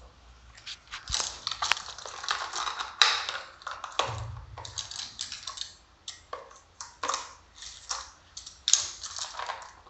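Takeaway food packaging being crinkled and handled, in irregular bursts of crackling and rustling.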